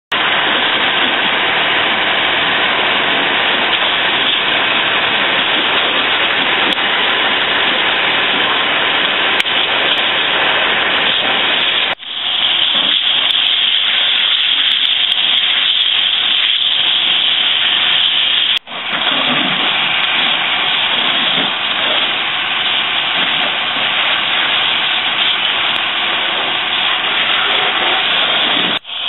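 Fire hose spraying water onto a burning car: a loud, steady hiss of spray and steam, broken for an instant three times.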